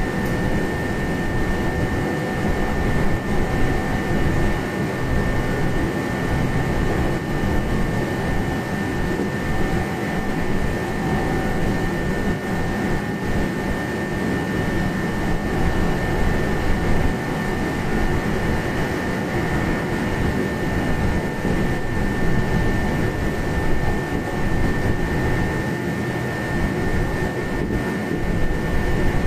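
Running noise inside a Meitetsu 1200 series electric train cruising at close to 120 km/h: a steady rumble of wheels on rail and running gear, with a constant high whine that holds its pitch, the sign of an even top speed.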